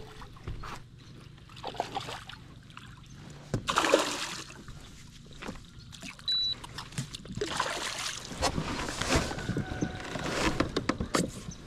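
A hooked bass splashing at the surface beside a kayak as it is played in. There is a short burst about four seconds in and a longer stretch of splashing from about eight to ten seconds, with small clicks and knocks in between.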